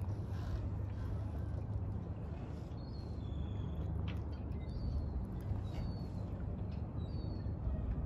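Young gulls giving short, high, thin peeps, roughly one a second through the second half, over a steady low rumble.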